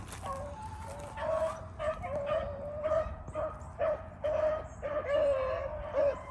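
A pack of beagles baying on a rabbit's track: a run of drawn-out, pitched bays one after another as the hounds run the scent.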